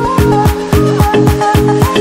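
Electronic background music with a fast, steady kick-drum beat, about four kicks a second, under a short repeating synth melody.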